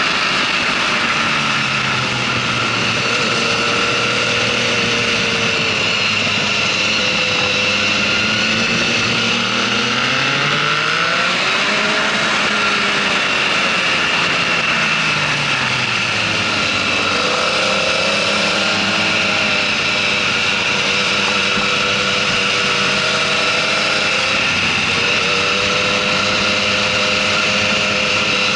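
Motorcycle engine running at track speed, its revs rising and falling with throttle and gear changes through the corners, over a steady rush of wind noise.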